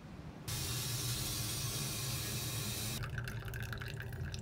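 Water running from a faucet-mounted water filter into a paper drip-bag coffee filter set in a stainless tumbler, a steady splashing stream that starts about half a second in and changes in tone about three seconds in.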